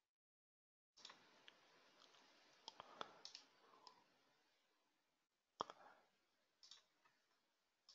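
Near silence on an open call line: a second of dead silence, then a faint hiss with scattered sharp clicks, a cluster of them over the next few seconds and a few single ones later.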